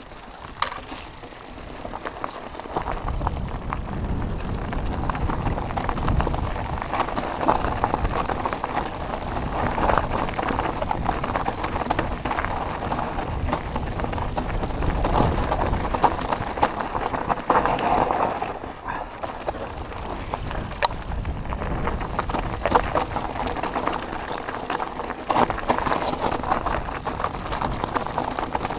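Mountain bike riding down a rocky trail: continuous rattling and clattering of the bike and tyres over stones, with a low rumble coming in a couple of seconds in.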